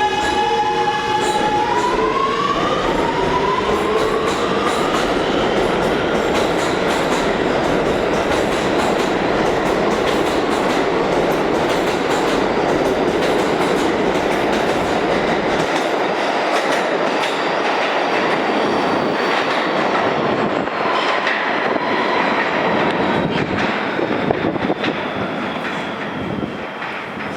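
Kawasaki R211A subway train pulling out of the station. The traction motor whine rises in pitch over the first few seconds, then the cars rumble and clatter past steadily, fading slightly near the end.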